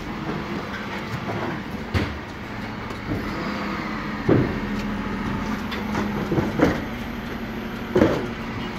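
Bin lorry running with a steady hum, broken by four sharp knocks spaced about two seconds apart.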